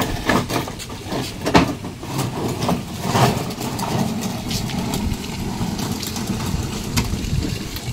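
Plastic wheels of a child's ride-on elephant toy rolling over a rough concrete floor: a low, steady rolling rumble, with a few knocks in the first couple of seconds.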